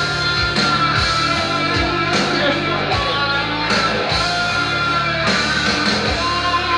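Instrumental introduction of a song with a steady beat: electric guitar with band backing.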